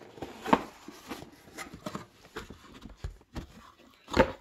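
A cardboard motherboard box being opened and its packed contents handled: an irregular run of light knocks, taps and rustles, the loudest about half a second in and just before the end.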